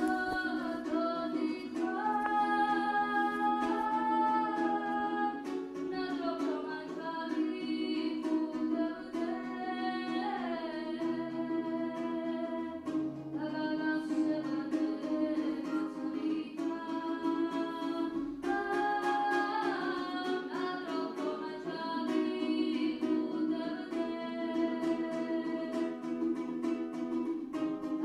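Georgian panduri, a small three-stringed lute, strummed steadily while a voice sings a melody over it.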